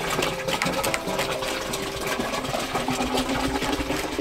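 Hens pecking grain from a plastic feeder tray, a rapid irregular tapping, over low drawn-out clucking from the flock.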